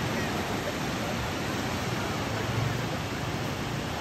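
Ocean surf breaking and washing up a sand beach, a steady rushing hiss.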